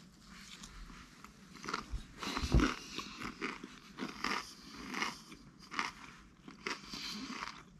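Chewing a toasted bagel and egg sandwich stuffed with Doritos: irregular crunching bites, the loudest about two and a half seconds in.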